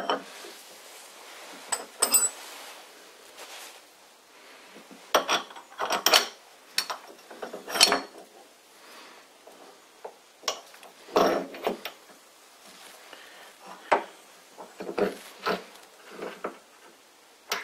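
Irregular metal clinks and knocks as an aluminium step pulley and spindle parts are handled and slid onto a lathe spindle, with short stretches of light rubbing between them.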